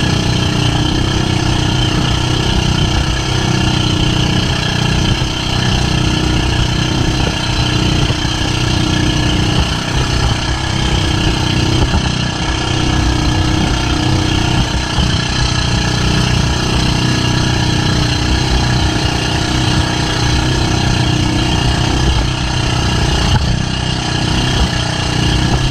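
Outrigger fishing boat's Honda engine running steadily at speed, with water rushing and spraying past the hull.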